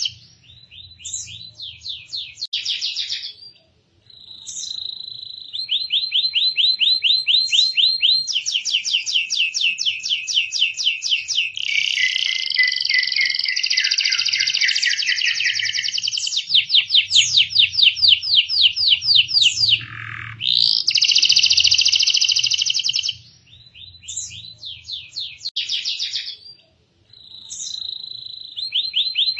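Canary singing a long song of fast rolling trills, rapid repeated high notes in runs of several seconds, with brief pauses and a quick downward slur in between.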